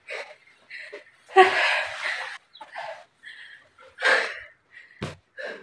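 A woman breathing hard and laughing breathlessly, out of breath from exertion, in uneven bursts, with a short sharp knock near the end.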